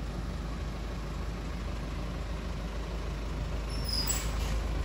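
Steady low rumble of street traffic, with a brief high squeak and a faint hiss near the end.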